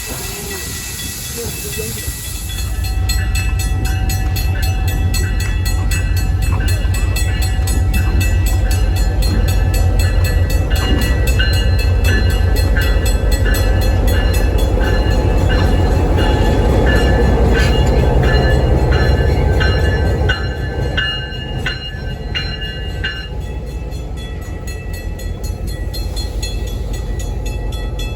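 A train running close by, its heavy low rumble rising about three seconds in and easing off about twenty seconds in. Through the middle there is a ringing of evenly spaced strikes, roughly one every half second.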